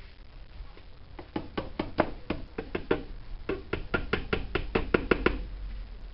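Rapid light tapping, about five sharp knocks a second, in two runs with a short pause between them, while the accordion's treble-side bellows are fitted back onto the body.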